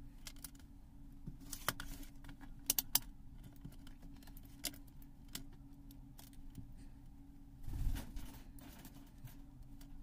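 Small scattered clicks and taps of handling close to the microphone, as multimeter test probes, wires and a small earphone battery are picked up and knocked together, over a steady low hum. A short, louder scuffing noise comes about eight seconds in.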